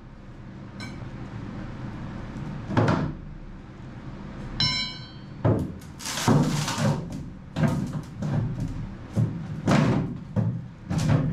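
Heavy thuds and knocks as a rotten wooden stringer is broken and pried out of a fiberglass boat's shaft alley. A single blow comes about three seconds in, then an irregular run of thuds through the second half. A brief high squeak comes just before the run.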